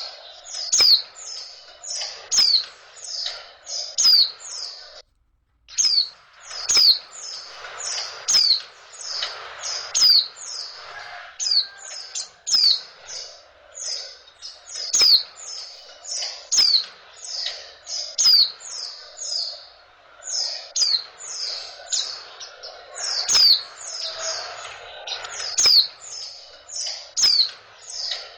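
Female white-eye (pleci) calling: a rapid series of short, high chirps that sweep downward, about two to three a second, with a brief break about five seconds in. This is the female call that keepers play to bring male white-eyes into breeding condition and set them singing.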